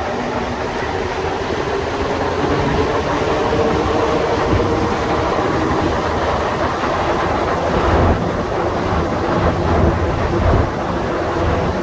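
Rubber-tyred Montreal Metro train running through the tunnel: a steady rumble and rush of running noise with a faint wavering tone from the drive, swelling a little louder near the end.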